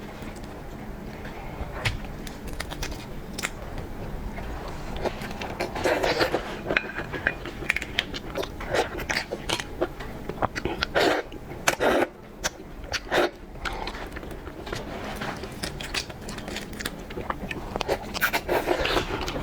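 Shrimp being handled and eaten at close range: irregular crackles and sharp clicks of shell, with crunching and chewing.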